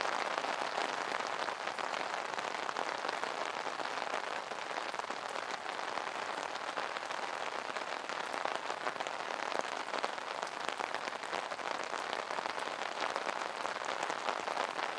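Steady rain pattering on an umbrella canopy, a dense hiss dotted with the taps of single drops.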